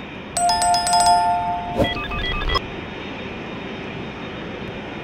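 A subscribe-button sound effect: clicks and a bell-like two-tone chime, cut off suddenly about two and a half seconds in. Under it and after it comes the steady noise of a Lockheed C-5 Galaxy's turbofan engines as it taxis.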